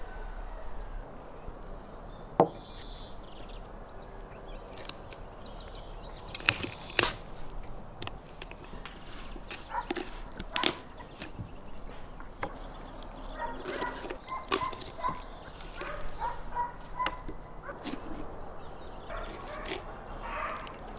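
Knife working through a raw goose carcass on a wooden cutting board: scattered sharp knocks and snaps as the blade meets the board and the wing and leg joints are cut through. Around the middle, a run of short high-pitched calls from an animal.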